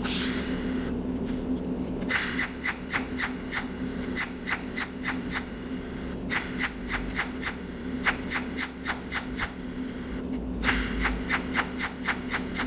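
Cold welding machine firing rapid pulses, each a sharp crack, about three a second in three runs of several seconds, as it melts filler wire into a hole in copper spot by spot. A low steady hum runs underneath.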